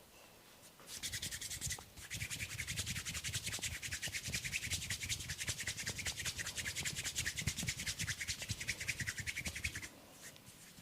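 Hands rubbing briskly in rapid, even strokes, as in a vigorous head massage. The rubbing starts about a second in, breaks off briefly, then runs on and stops near the end.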